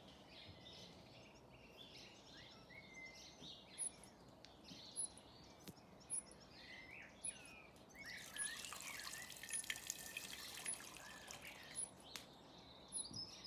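Garden birds singing throughout, and from about eight seconds in, water poured from a glass jug for about four seconds, a trickling splash.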